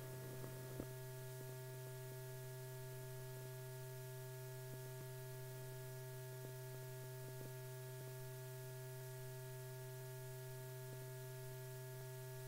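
Steady low electrical hum from an old film soundtrack, with a few fainter steady tones above it and a faint click about a second in.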